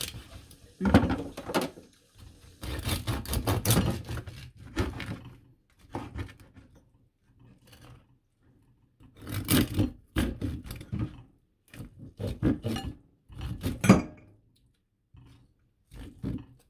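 Kitchen knife sawing through the crackling skin of a roasted pork leg (crispy pata) on a wooden cutting board: several bursts of crunching and scraping with short pauses between them. The crunch is the sign of a crisp, well-roasted skin.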